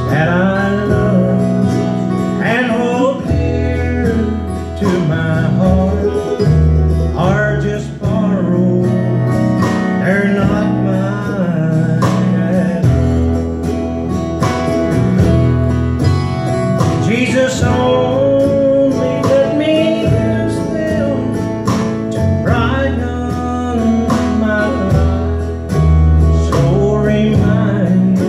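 Live bluegrass gospel band playing: strummed acoustic guitars over an upright bass, with lead and harmony singing.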